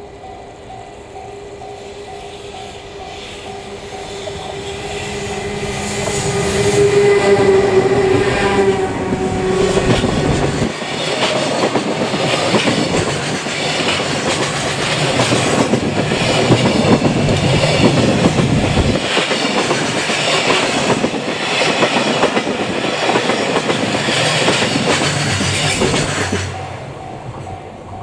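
An EH200 electric locomotive approaches and passes close by, its steady motor hum growing louder for about ten seconds. Then a long string of container wagons clatters past, wheels clicking over the rail joints, until the sound falls away near the end. A level-crossing alarm rings on and off at the start and again at the end.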